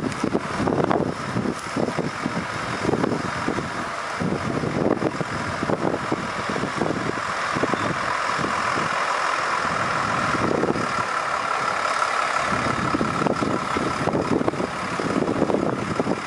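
Diesel railmotor of the Savannahlander, a Queensland Rail 2000-class rail motor, running as it rolls slowly across a timber trestle bridge, with irregular knocks and clatter from the wheels on the track under a steady engine note.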